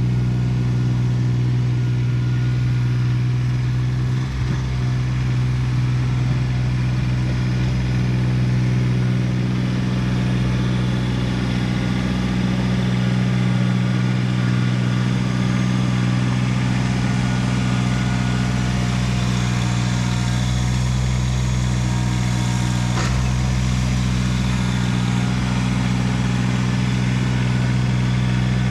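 Kubota BX1850 compact tractor's small three-cylinder diesel engine running steadily at a constant speed.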